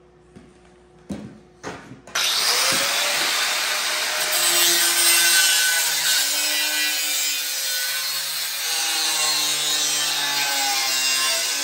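A few light knocks, then about two seconds in an angle grinder starts and runs steadily, grinding the metal edge of a snow shovel blade. Its whine shifts in pitch as the disc bears on the metal.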